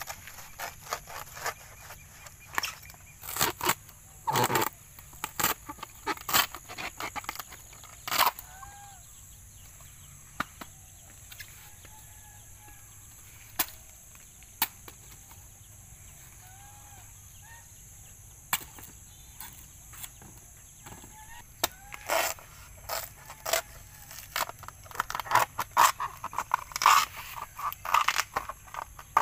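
A cleaver chopping into a banana plant's trunk and its fibrous layers being torn away: irregular sharp chops and snaps, in clusters with quieter stretches between. Hens cluck in the background.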